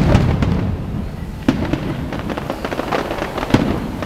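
Aerial fireworks shells bursting: a loud bang right at the start, another about a second and a half in and a third near the end, with rapid crackling and popping and a low rumble between the bangs.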